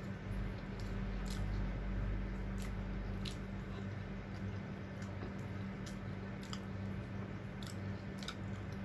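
Close-miked chewing and wet mouth clicks of someone eating fried tawilis fish and eggplant with rice, with scattered sharp clicks over a steady low hum.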